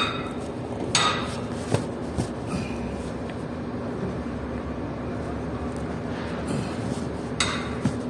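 A few sharp metallic clinks and knocks from hand work on the hydraulic filter housing of a concrete pump truck, the loudest about a second in and near the end, over a steady low hum.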